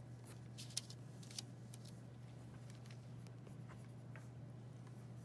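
Pencil scratching on drawing paper in short, faint strokes as eyes are sketched, over a low steady hum.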